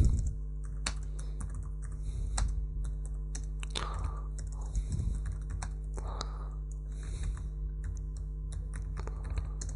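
Computer keyboard being typed on, keys clicking in irregular runs, over a steady low hum.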